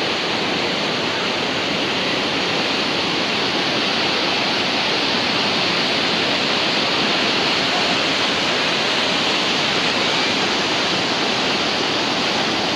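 A waterfall: river water pouring over stepped rock ledges in a loud, steady rush of white water.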